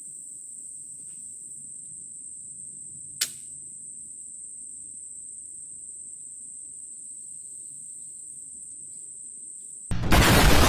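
Steady high insect drone of crickets, with a single sharp snap about three seconds in: the flintlock pistol's cock falling and striking its flint on the frizzen without the powder catching. Near the end a loud, rumbling rush of noise begins.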